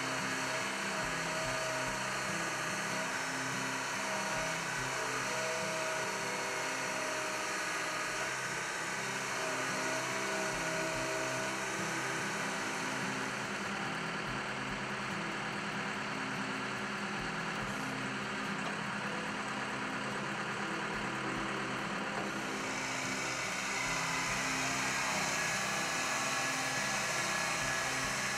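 Case 580SM loader backhoe's diesel engine running steadily. A higher hiss joins in about two-thirds of the way through.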